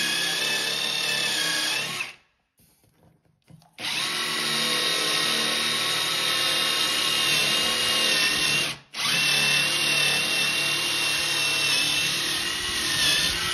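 Ridgid cordless drill boring into ceramic floor tile with a tile bit, a steady whine. It runs for about two seconds, stops for nearly two, then runs again, with a brief break about two-thirds of the way in.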